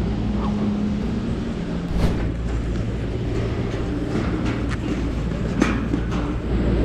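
Steady low machinery hum of a gondola cable car station, with a few sharp footfalls and clanks on steel grating stairs.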